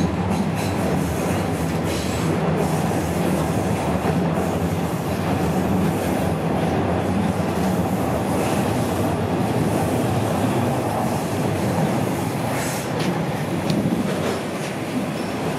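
Toronto Rocket subway train running through a tunnel, heard from inside the car: a steady rumble of wheels on rail with a few faint clicks, easing a little near the end as the train slows for the next station.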